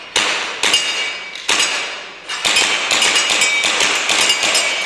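Gas blowback airsoft pistol firing a string of shots, with the BBs hitting metal targets that ring after each hit. A few spaced shots at first, then a fast run of several a second from about halfway.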